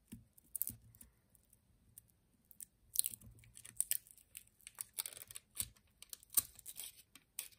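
Fingernails picking and scratching at the stuck end of a roll of clear plastic decorative tape to lift it: a string of small, sharp clicks and crackles, most of them from about three seconds in.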